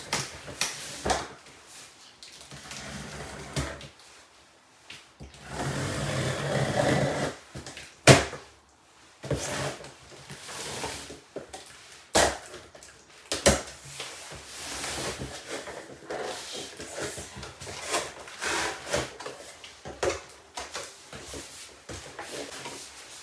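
A cardboard shipping box being opened and handled: rustling and scraping of cardboard with several sharp knocks, the loudest about eight seconds in.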